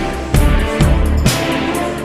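Soundtrack music with a heavy beat: deep drum hits over sustained bass and held tones.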